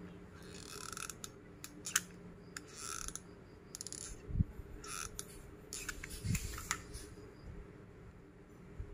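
Quiet clicks and light scratchy handling sounds as glue is put onto the ends of a plastic-straw railing, with two dull knocks about four and six seconds in.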